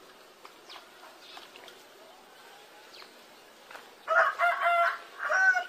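A rooster crowing about four seconds in: one drawn-out call in a few sections, after a quiet stretch.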